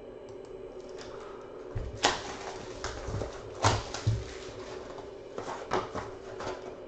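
Plastic shrink wrap being torn and crumpled off a sealed box of trading cards: a run of sharp crinkling crackles, over a steady low hum.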